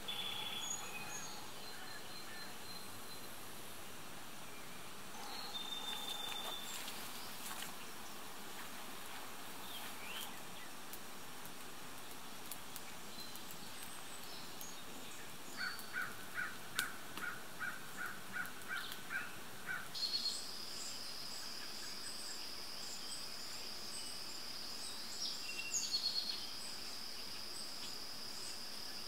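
Woodland ambience with birds and insects. Short chirps come and go. About halfway through, a bird repeats one note roughly twice a second for a few seconds, and then a steady high insect buzz sets in and carries on. A few faint clicks are scattered through.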